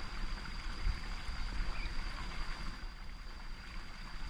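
Water trickling steadily into a pond, with a constant high-pitched whine over it.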